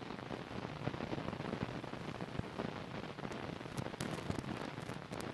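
Steady hiss with scattered crackling clicks, the surface noise of an old film soundtrack. No music or other distinct sound is heard.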